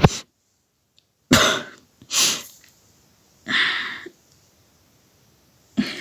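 A person coughing: about four short, separate coughs roughly a second apart.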